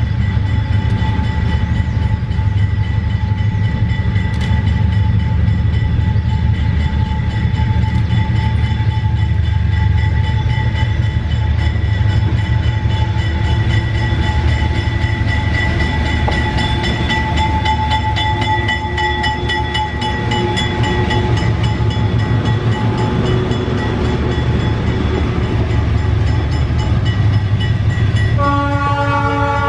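GE BB36-7 diesel-electric locomotives pulling a loaded freight train past, their engines running heavily with a deep steady rumble and a steady high whine. A multi-note air horn starts sounding near the end.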